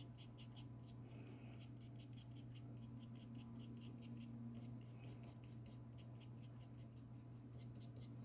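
Bristle brush dabbing gouache onto watercolour paper in short quick strokes, about four a second, faint, over a steady low hum.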